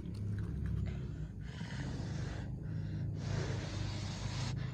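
Two long puffs of breath blown onto hot corn fritters to cool them, each lasting about a second, the first about a second and a half in and the second around three seconds in.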